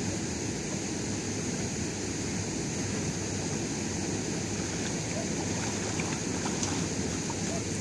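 Steady rushing noise of wind and lake water, even throughout, with a few faint ticks in the second half.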